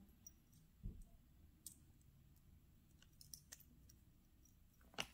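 Faint clicks and a soft thump of small jewelry pieces being handled and set down on a table, the sharpest click near the end.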